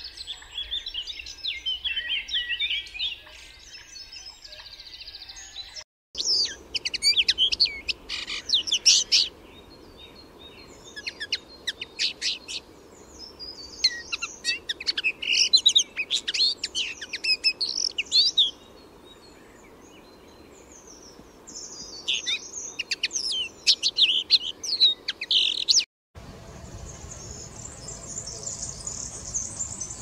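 Common linnet singing: bursts of fast twittering and chirping phrases with short pauses between them. It is preceded by a few seconds of common blackbird song, and after a cut near the end gives way to the high, continuous fizzy jingle of a European serin's song.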